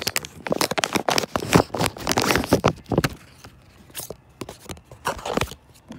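Close handling noise of rummaging: crinkling, scraping and clicking, dense for about the first three seconds, then a few scattered scrapes.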